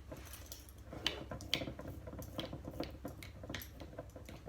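Irregular light clicks and taps of measuring spoons and kitchen utensils being handled, with a couple of sharper clicks about one and one and a half seconds in.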